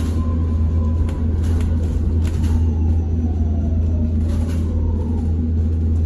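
Cabin sound of a BYD ADL Enviro200 electric bus under way: a steady low road rumble with a few short clicks and rattles, and the electric drive's thin whine gliding down in pitch from about halfway through.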